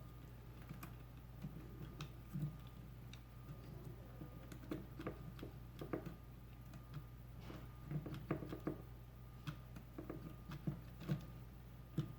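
Light, irregular clicks and taps of small toy parts being handled and cleaned, over a faint steady hum.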